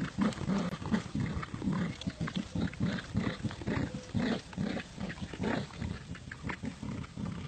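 Dog growling in play during a game of tug-of-war over a toy: a continuous run of low, rough growls.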